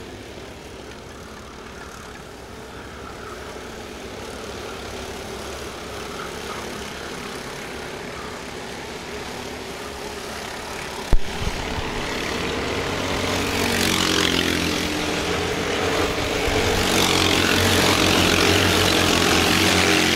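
Racing kart engines running at speed on the track, growing louder over the second half as a pack of karts comes closer. A single sharp thump about halfway through.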